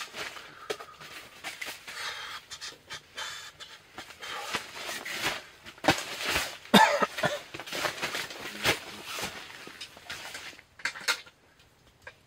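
Rustling and handling noises: fabric rustling and a cord being handled and fixed up under a tent roof, with scattered short clicks.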